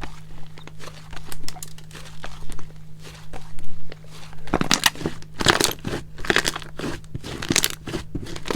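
Elmer's glue slime being squished and stretched by hand, giving sharp crackling clicks and pops that turn into denser, louder bursts about halfway through.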